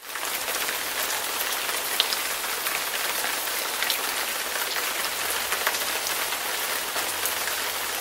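A steady rain-like hiss with scattered light ticks and crackles, starting just after a moment of silence and beginning to fade near the end.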